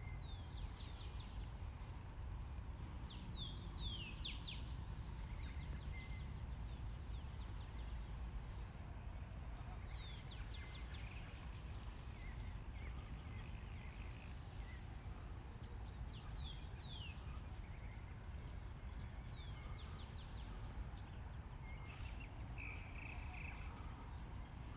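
Swallows calling: short, high chirps that slur downward, coming in small clusters every few seconds over a steady low background rumble.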